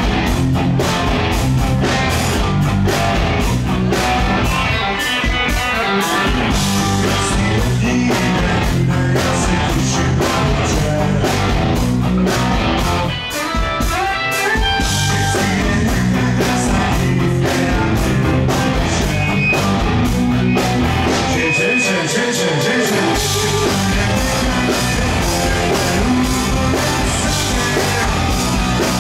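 Live punk-rock band playing: distorted electric guitars, bass and drums, recorded from the audience, with a brief drop in level about halfway through.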